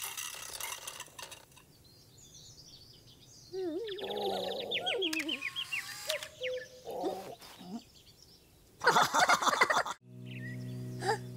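Cartoon sound effects: squeaky, gliding creature vocal noises through the middle, a short loud burst of noise about nine seconds in, then a steady low buzzing hum near the end.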